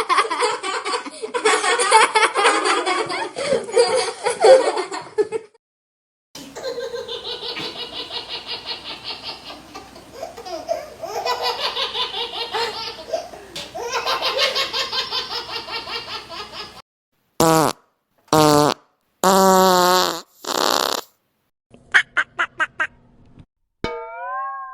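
A string of comedy meme sound effects played back to back. Laughter fills roughly the first half, then come several short cartoonish pitched blips and sweeps with gaps between them.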